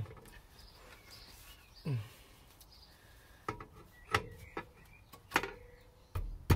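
Clutch pressure plate being worked and knocked against the flywheel dowels of a Triumph Stag: a short falling-pitch sound about two seconds in, then a few sharp metal clicks and knocks in the second half with a faint ringing tone. The plate will not seat because one of its dowel holes is a fraction too small.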